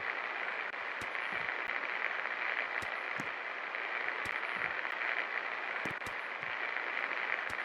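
A 24-inch Kashmir Nabeel ceiling fan running with a steady hiss of moving air and motor noise, with faint irregular clicks.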